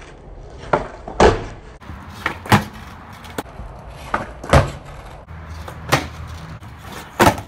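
Skateboard tricks on concrete: a series of sharp cracks as the deck's tail is popped and the board and wheels slap back down, with the loudest landings about a second in, halfway through and near the end.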